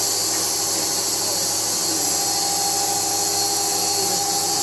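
SMFA 100 automatic sawmill running steadily: a constant high hiss over a steady low hum.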